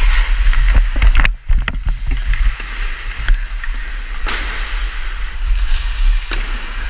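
Hockey skate blades scraping and carving across the ice, heard through a helmet-mounted GoPro with a low wind rumble on the microphone. Several sharp clicks of the stick on the puck, and a louder, longer scrape about four seconds in.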